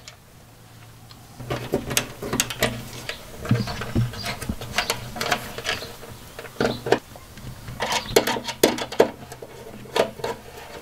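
Screwdriver working the terminal screws of a Blue Sea Systems ST Blade fuse block: irregular small clicks and scrapes as crimped fork terminals are slid under the screws and tightened down.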